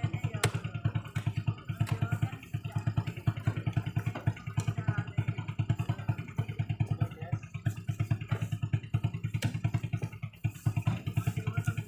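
Honda Revo 110cc single-cylinder four-stroke motorcycle engine running steadily in a homemade mini truck, a fast even low chugging.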